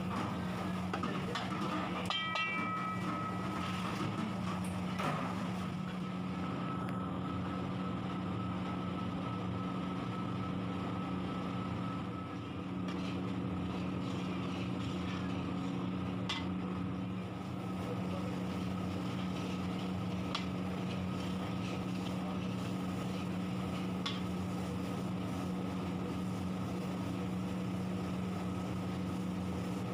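Sliced onions frying in bubbling oil in a large steel kadhai, with a few scrapes of a long steel ladle, over a steady low machine hum.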